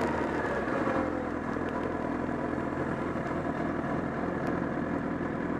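Honda CBR1000RR's inline-four engine settling about a second in from falling revs into a steady idle. It has the abnormal flapping 'bata-bata' noise from near the engine that comes with a loss of torque.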